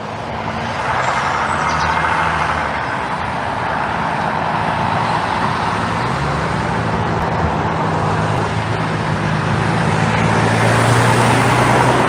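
A road vehicle's engine running close by, its pitch shifting about halfway through, with the sound swelling near the end.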